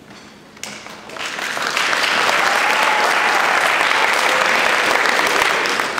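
Audience applauding, starting about a second in and building quickly to steady, full applause.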